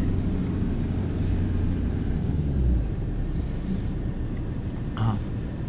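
Engine and road noise of a moving small car heard from inside the cabin: a steady low rumble, with one short knock about five seconds in.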